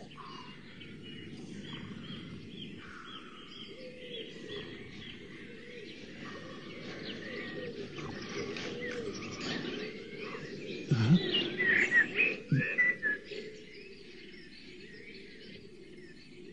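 Birds chirping over a steady low background hum, with many short calls throughout. About eleven to thirteen seconds in come a few louder chirps and two short low knocks.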